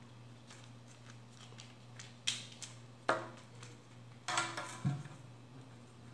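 Clicks and light knocks from a fishing pole being handled, a few sharp ones from about two seconds in and a dull thud near the end, over a steady low hum.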